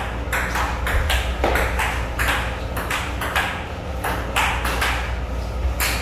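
Table tennis rally: the ping-pong ball clicking back and forth off paddles and the table, a hit about every half second, over a steady low hum.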